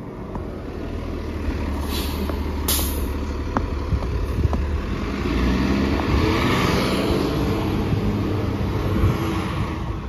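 Fairfax Connector transit bus pulling away from the stop and driving past, its engine a steady low drone. Two short air-brake hisses come about two and three seconds in. The engine and road noise grow louder in the second half as the bus passes and pulls away.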